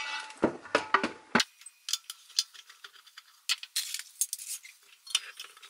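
A few dull knocks, then irregular light metallic clicks and clinks as hands work at the metal base of an oil rain lamp, taking it apart.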